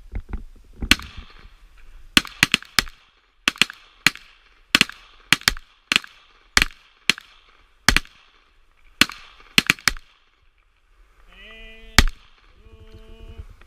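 Pistol shots fired in field-shooting competition, in an irregular, rapid string of many cracks after the fire command, some in quick pairs and triplets, with a last single shot about twelve seconds in. Near the end, short stretches of a steady pitched tone sound.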